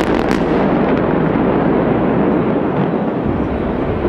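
Controlled demolition of the Morandi Bridge's remaining section by explosive charges. The last of a rapid string of sharp charge cracks comes in the first half second, then a continuous heavy rumble of the blast and collapse.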